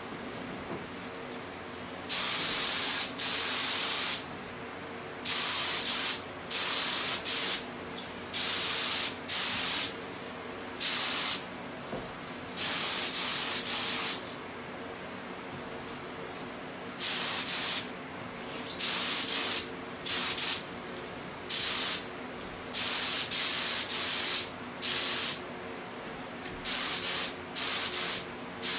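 Gravity-feed air spray gun hissing in repeated on-off bursts as the trigger is pulled for each pass of paint. The bursts start about two seconds in and each lasts from a fraction of a second to about two seconds. A faint steady low hum runs underneath.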